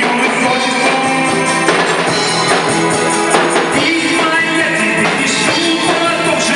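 Music: a cover of a song played with a band and a steady drum beat.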